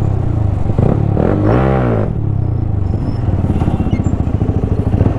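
Yamaha R15 V3's single-cylinder engine running while riding, with a brief rise and fall in revs about a second and a half in.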